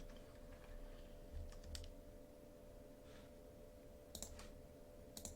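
Near silence with a few faint, scattered clicks from a computer mouse and keyboard in use, over a faint steady electrical hum.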